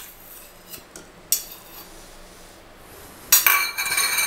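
Steel spoon scraping and clinking lightly against a stainless-steel bowl while scooping out condensed milk. Just past three seconds in comes a sharp metal clink that rings on at a steady high pitch for about two seconds.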